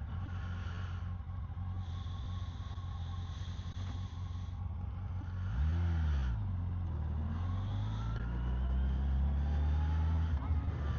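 Vehicle engine idling steadily, blipped once about halfway, then revved slowly higher before dropping back near the end.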